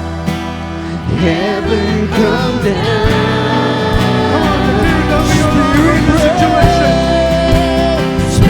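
Live worship band playing a contemporary worship song with sung vocals. Held keyboard notes give way about a second in to a fuller sound with drums.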